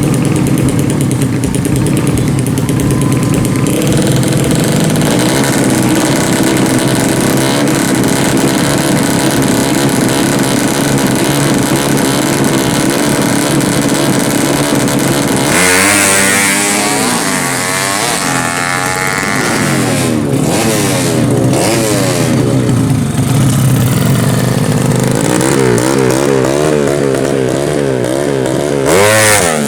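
Tuned four-stroke underbone drag-bike engines running steadily, then from about halfway revved hard again and again, the pitch swinging up and down in quick blips. A loud rev comes near the end.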